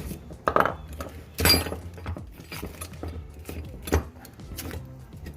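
Metal hand tools clinking and clanking against each other as they are handled, with three louder sharp knocks about half a second, a second and a half, and four seconds in, the middle one ringing briefly.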